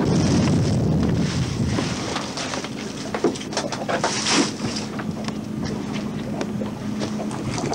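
Fishing boat's engine running steadily, with wind buffeting the microphone. A few sharp knocks and rattles about three to four and a half seconds in, as a clump of shell and weed from the oyster dredge is heaved over the side.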